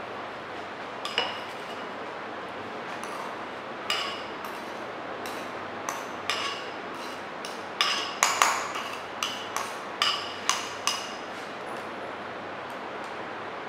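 Metal spatula clinking against a ceramic bowl and a steel oedometer ring as soil is scraped into the ring and tamped down: a series of sharp, irregular clinks, coming thickest a little past the middle, over a steady hiss.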